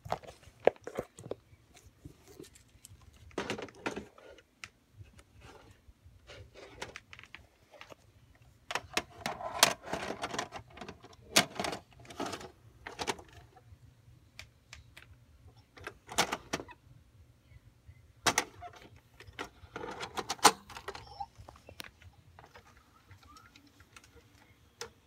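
Irregular clicks, knocks and plastic rattling of a VHS cassette being handled and loaded into a VCR, with clusters of clattering in the middle and a few single sharp clicks from the deck and its buttons as the tape is put into play.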